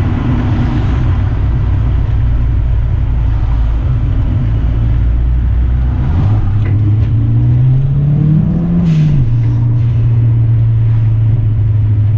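Engine of a Toyota Celica GT-Four ST165, a turbocharged 3S-GTE inline-four, heard from inside the cabin while driving: a steady low drone. About halfway through, the revs rise for a couple of seconds, drop back sharply, then hold steady.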